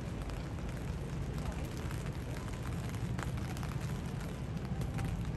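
Distant low rumble of three military helicopters passing over in formation.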